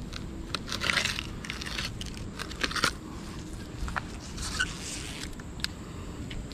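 Crunching and crackling as gloved hands squeeze and break thick black river muck off a plastic toy truck. It comes in several short bursts, about a second in, near two seconds, and around three and five seconds in, with a few sharp clicks between them.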